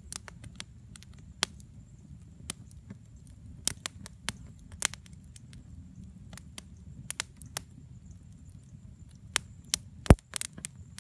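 Wood campfire crackling in a fire pit: irregular sharp pops and snaps over a low rumble, with one loud pop about ten seconds in.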